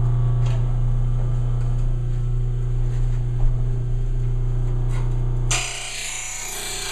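RBG blade grinder's electric motor running with a steady hum. About five and a half seconds in, the abrasive wheel bites into the steel edge of a Honda lawn mower blade with a harsh grinding noise: a test pass to check that the wheel meets the full face of the edge.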